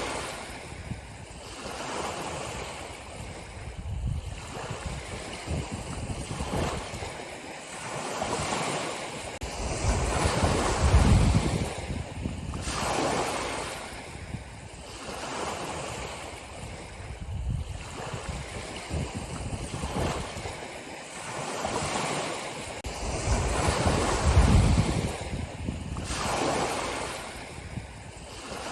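Ocean waves breaking and washing in surf, one after another every few seconds. The two heaviest waves surge about a third of the way in and again near the end.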